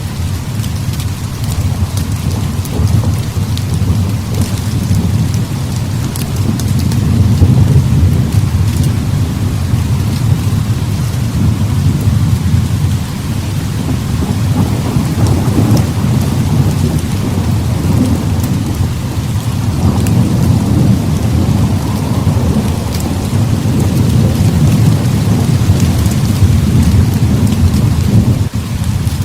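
Heavy rain pouring steadily, with a continuous low rumble of thunder that swells a few times.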